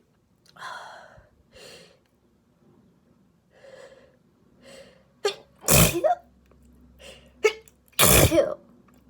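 A woman sneezing loudly twice, about two seconds apart, after several breathy catching gasps. It is an allergic sneezing fit, set off by flowers she is allergic to.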